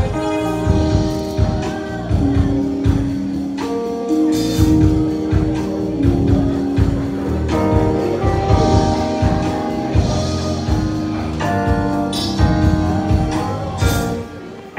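Music playing: long held instrumental notes over a steady drum beat.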